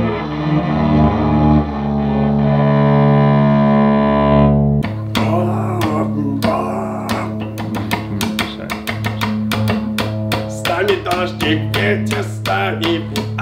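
Electric cellos playing long bowed notes that slide in pitch; about five seconds in, the music changes abruptly to fast, rhythmic strumming and plucking on an electric cello.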